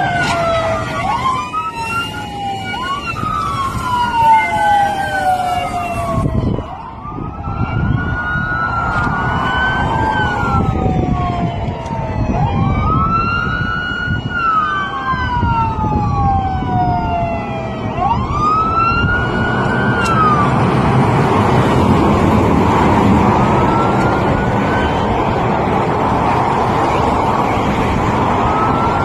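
Several police sirens wailing at once, their rising and falling tones overlapping out of step. A steady rushing noise grows louder under them after about twenty seconds.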